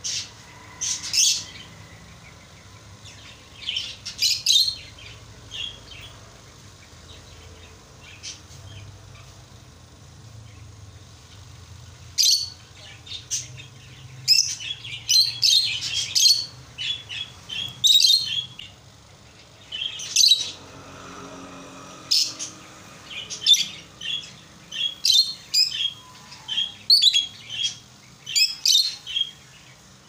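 A pair of lutino peach-faced lovebirds chirping in short, shrill bursts. The chirps are sparse at first, then come quickly one after another from about the middle on.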